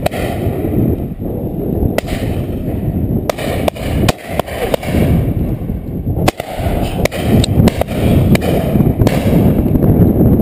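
Shotguns firing on a pheasant drive: a scattering of sharp cracks, several in quick succession near the middle, under a steady rumble of wind buffeting the microphone.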